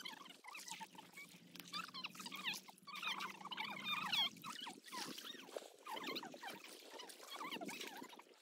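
Faint, overlapping chatter and calls from a group of people bathing in shallow water.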